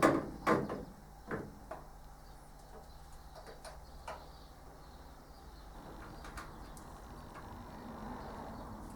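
A few light clicks and knocks in the first couple of seconds, with two more later, from handling screws with washers and fitting them through a slot into a metal tool chest, over a faint background in which a bird, likely a dove, calls softly.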